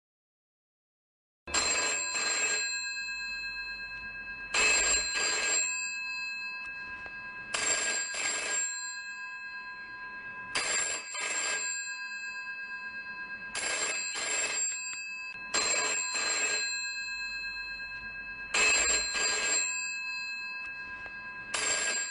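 Telephone bell ringing in a double-ring pattern, ring-ring then a fading tail, repeating about every three seconds, eight times in all; it starts about a second and a half in, after silence.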